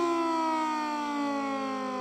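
Sentry 2V8 dual-tone fire siren sounding a short attack signal: its two tones glide slowly lower together as it winds down between rises.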